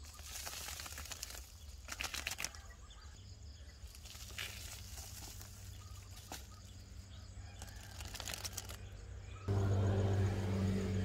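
Light rustling and crackling as dry chicken manure and sandy soil are handled around a young orange tree. About nine seconds in, a louder low steady hum starts suddenly.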